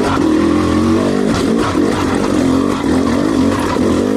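2020 KTM dirt bike engine pulling in second gear, its pitch rising and falling repeatedly as the throttle is worked.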